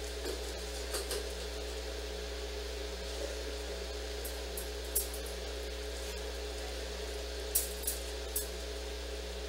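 Steady low hum with a few sharp clicks and knocks, three of them close together about eight seconds in.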